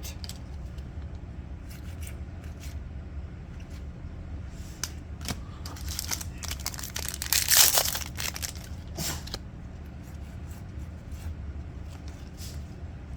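A foil trading card pack being torn open and handled: crinkling wrapper and light clicks of cards, with one louder rip about halfway through, over a steady low hum.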